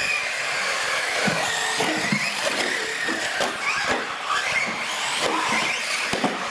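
Several radio-controlled UTV trucks racing, their electric motors whining and rising and falling in pitch as they speed up and slow down. Tyres scrub on concrete, with scattered short knocks.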